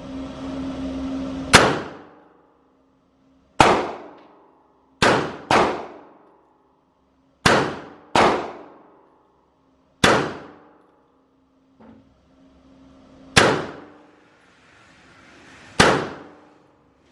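About nine handgun shots at an indoor range, sharp and irregularly spaced, some in quick pairs, each with a short echoing tail off the range walls. The range is a very loud environment.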